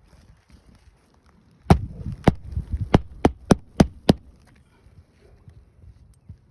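Hammer driving a new nail under a lifted roof shingle: seven sharp strikes over about two and a half seconds, starting a little under two seconds in and coming slightly faster toward the end.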